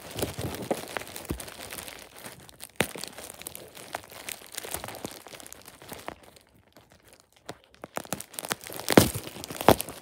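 Packing paper being handled and pulled from a shipping box: irregular rustles with scattered sharp crackles. It goes quiet for about two seconds past the middle, and louder crackles return near the end.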